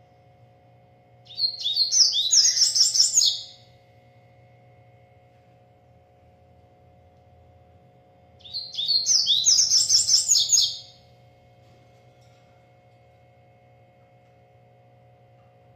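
Double-collared seedeater (coleiro) singing two fast, high twittering song phrases of about two seconds each, several seconds apart, over a faint steady hum.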